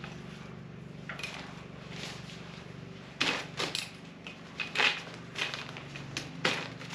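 A compact folding camping chair being handled: its metal frame poles click and knock, and its fabric seat rustles. There are a few scattered sharp clicks, the loudest from about three seconds in.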